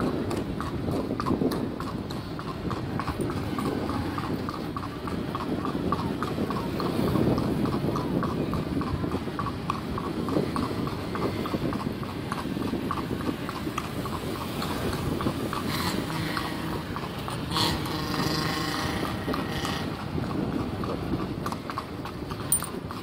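Hooves of a ridden horse striking an asphalt street at a brisk gait: a quick, steady clip-clop.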